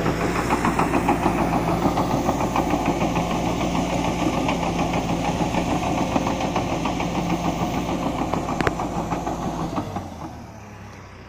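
Caterpillar D5K LGP bulldozer's diesel engine and steel tracks running under load with a fast, even clatter while it grades soil. One sharp click near the end, then the sound drops to a much quieter low hum.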